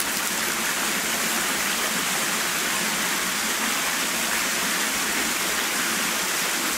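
Steady, unbroken rushing hiss like running or falling water, with no change in level or character.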